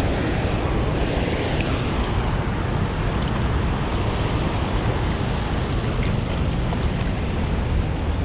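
Loud, steady rush of water released through a dam's outlet gates.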